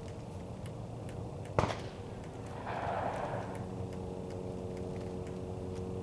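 Rifle scope windage turret being dialled, faint regular clicks about four a second as it is turned 24 clicks left. A single sharp bang about a second and a half in stands out above the clicks.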